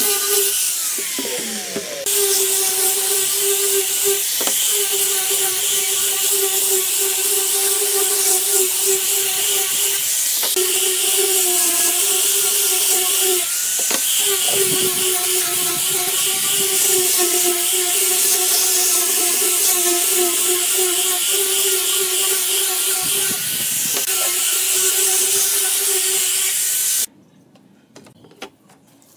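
Angle grinder with a sanding disc running and sanding wooden boards: a steady high whine over a loud hiss of abrasion. About a second in its pitch falls away as it winds down, then it runs up again. It cuts off suddenly near the end.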